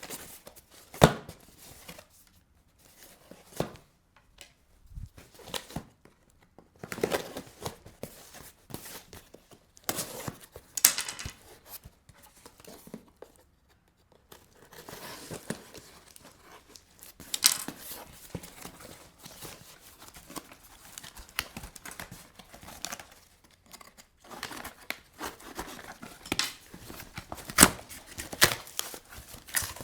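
Packaging of a perfume box being torn open and crinkled by hand: irregular rustling and tearing in bursts, with sharp clicks and short pauses between.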